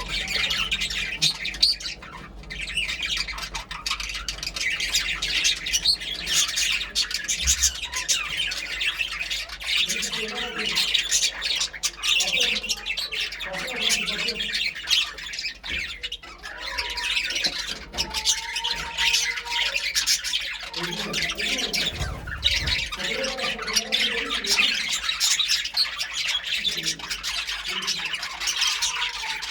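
A flock of budgerigars chirping and chattering without a break, a dense high twittering with lower warbling mixed in through the middle and latter part.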